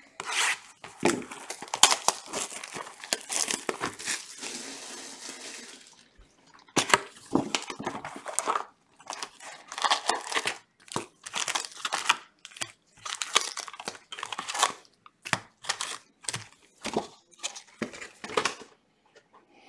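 Plastic wrapper and cardboard of a retail box of trading cards crinkling and tearing for the first six seconds as the box is opened, then a string of short crinkles as the foil card packs are pulled out one by one and stacked.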